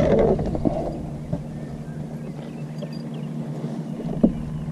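Boat motor running with a steady low hum, under some knocking and handling noise in the first second and a single sharp knock near the end.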